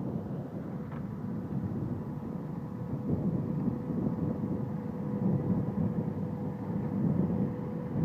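Tractor engine working steadily under load as a New Holland tractor pulls a power harrow through ploughed ground, with a thin steady whine over the engine. It gets louder about three seconds in.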